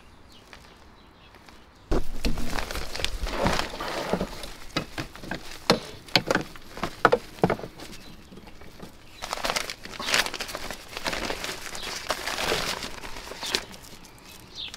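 A grass-catcher bag's wire frame and mesh fabric being handled and hooked onto the plastic rear of a Ryobi 40-volt cordless mower: rustling with a run of sharp clicks and knocks, starting about two seconds in.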